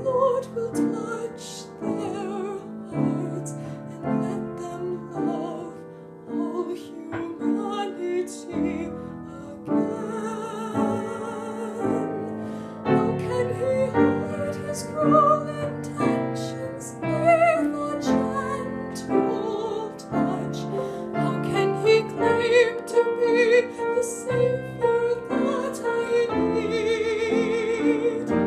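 Slow classical-style music: piano accompaniment under a sustained melody with vibrato, operatic in character.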